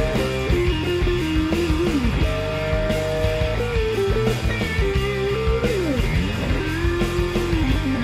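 Rock background music led by a guitar melody of held notes that slide from one pitch to the next.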